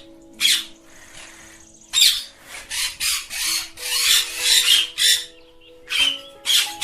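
Ringneck parakeets giving harsh, rasping screeches in short bursts: one shortly after the start, a rapid run of about ten in the middle, and two or three more near the end.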